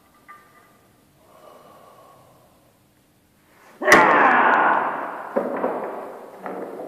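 A bare-hand hammer-fist strike hitting a stone set on a heavy metal plate on a wooden bench: one sharp, loud crack about four seconds in, followed by a second or so of loud noise fading away, then two lighter knocks.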